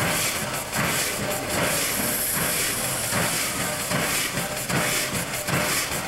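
Steady hiss of escaping steam from a standing Mitsubishi Type 80 steam locomotive, with an uneven pulsing underneath.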